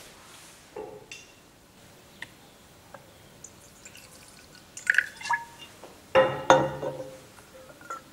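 Whisky poured from a glass bottle into a metal coupe glass: a few faint clinks, then two short bursts of pouring and gurgling with a ringing tone, about five and six seconds in, the second louder.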